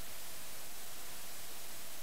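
Steady, even hiss with no distinct events: the self-noise of a submerged camera's microphone.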